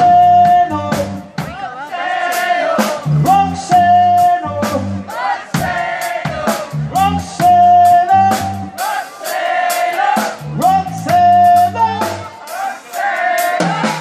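Live rock band playing: drum kit beating a steady rhythm under a bass line, with a melody of held notes over it.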